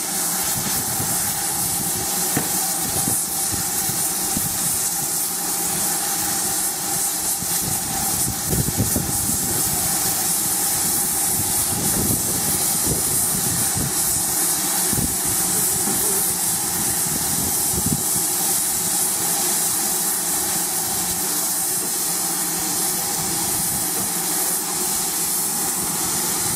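GWR 5600 class 0-6-2T tank locomotive No. 5643 standing in steam, letting off a steady hiss of escaping steam with a constant tone beneath it. A few faint knocks come through midway.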